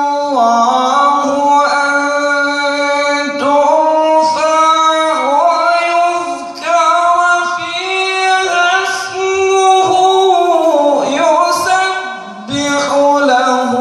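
A male Qur'an reciter chanting in a melodic, ornamented tajwid style through a microphone, holding long notes that slide and turn between pitches. There are short breath breaks about six and twelve seconds in.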